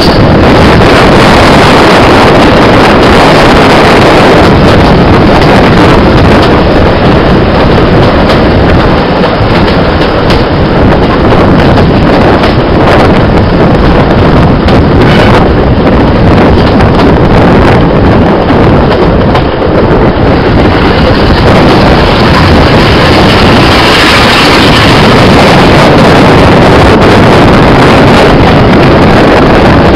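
Heavy wind buffeting on the microphone held out of a moving coach window, over the running noise of a train hauled by Class 46 'Peak' diesel locomotive D182.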